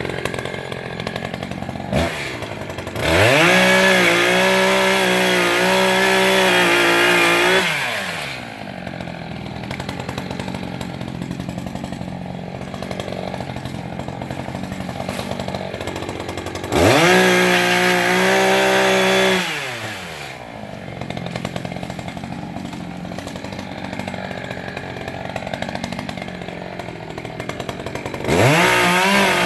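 Echo CS-590 Timberwolf two-stroke chainsaw idling between cuts and opened to full throttle three times: about 3 s in for some five seconds, around 17 s for about three seconds, and again near the end, the engine pitch climbing fast and falling back each time as it cuts into areca palm stems.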